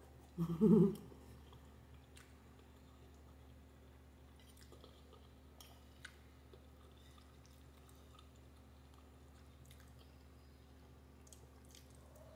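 Faint chewing and mouth sounds of someone eating pasta, with a few small clicks of a fork on a plate. There is a brief voiced sound about half a second in.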